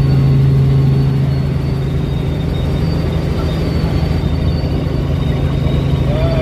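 Robinson R44 Raven II helicopter in flight, heard from inside the cabin: its six-cylinder Lycoming piston engine and rotors make a loud, steady drone with a strong low hum, easing slightly about a second in.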